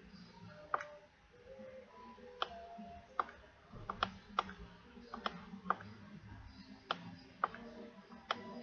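Computer mouse clicks, about a dozen sharp, irregularly spaced clicks, over a faint background.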